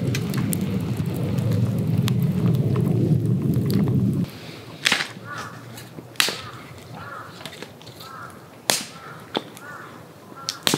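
Wood fire in a small folding stove crackling and popping, heard up close. About four seconds in it gives way to a few sharp snaps of twigs being broken, while a bird calls repeatedly with short cawing calls.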